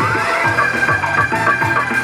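Background music with a steady beat; a tone glides up in pitch and levels off just after the start.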